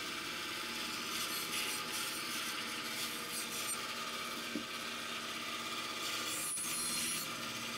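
Bandsaw running, its blade cutting through a wooden shoe last as it is fed by hand: a steady hiss of the blade in the wood, carving away the quarters of the last.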